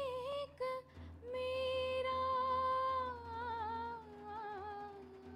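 A woman singing a slow song from an old Hindi film with no accompaniment. She holds long notes and adds wavering ornaments, and the melody steps down to a lower held note near the end.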